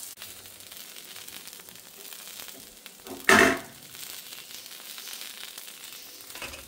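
Semolina-coated eggplant slices shallow-frying in oil on a flat griddle pan, a steady soft sizzle. About three seconds in there is one brief, loud burst of noise.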